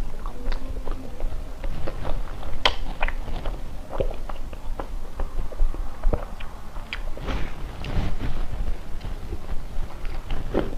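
Close-miked chewing and lip smacking on a soft cream-filled bun: irregular wet mouth clicks and smacks, with no words.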